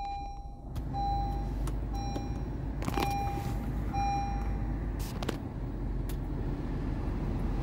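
2021 Acura ILX's 2.4-litre four-cylinder engine idling steadily just after a push-button start, while the seat-belt reminder chime rings about once a second, five times, then stops.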